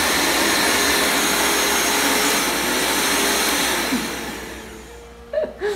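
Electric mixer motor running steadily at high speed with a whirring whine, then fading and winding down about four seconds in.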